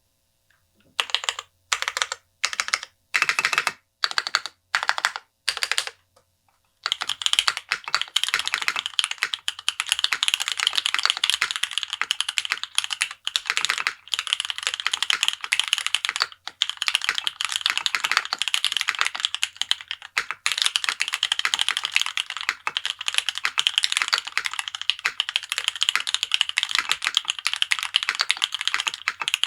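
Mechanical keyboard with stock (unlubricated) JWICK Black linear switches being typed on: a handful of separate keystrokes spaced about half a second apart, then steady fast typing from about a quarter of the way in.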